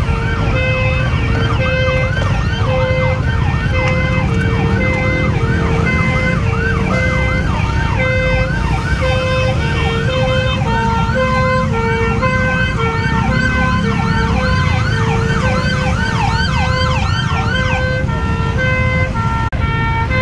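Several emergency vehicle sirens sounding at once: a two-tone hi-lo siren switching pitch about once a second, overlapping a fast rising-and-falling yelp, over a steady low rumble.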